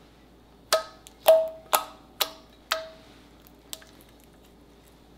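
Fluffy slime being poked and pressed with fingertips, trapped air popping out: five sharp clicking pops about half a second apart, then a fainter one about a second later.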